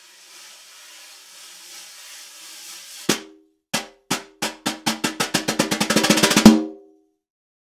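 Pearl Philharmonic snare drum: a wire brush sweeps softly across the head, slowly swelling. About three seconds in, single strokes begin and come faster and louder into a roll, ending on a loud accent with the drum's ringing tone.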